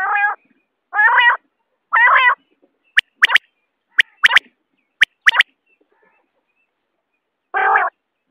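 Common quail calling. The bird gives three short nasal calls about a second apart, then three pairs of brief sharp notes, and after a pause a rougher call near the end.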